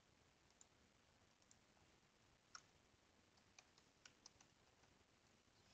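Faint clicks of typing on a computer keyboard: scattered single key taps, the loudest about halfway through, then a quicker run of several taps, over a near-silent room tone.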